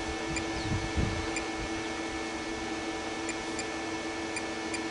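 Digital torque wrench giving six short electronic beeps, spaced unevenly, as its buttons are pressed to set the target torque, over a steady background hum.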